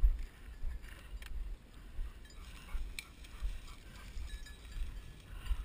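Footsteps of a walker carrying the camera, heard as repeated dull thuds, with tall dry grass rustling and a few faint clicks.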